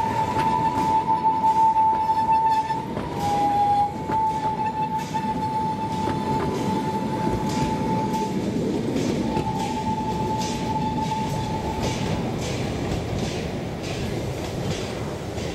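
Narrow-gauge train passing on the 760 mm Osoblaha line, its wheels squealing in a high, wavering tone on the curved track, with wheel clicks over the rail joints. The squeal stops about twelve seconds in and the train noise then slowly fades.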